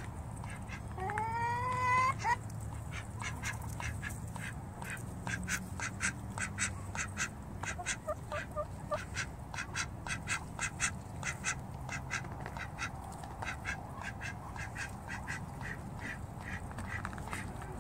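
Poultry beaks pecking mealworms out of a plastic tub: a long run of sharp taps on the plastic, two or three a second. A single rising bird call comes about a second in, and a few short soft notes near the middle.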